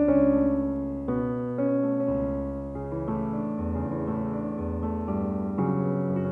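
Slow background music played on piano or electric piano, sustained chords and notes changing about once a second.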